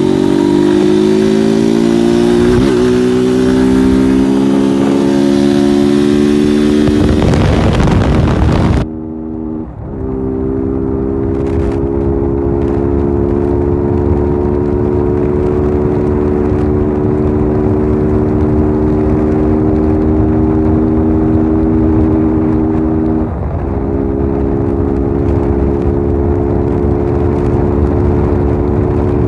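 Honda CG 160 Titan's single-cylinder four-stroke engine pulling hard under acceleration, its pitch climbing over the first several seconds. From about nine seconds in it holds almost steady at high revs, with a short break about 23 seconds in. Wind rushes over the microphone, strongest around seven to nine seconds in.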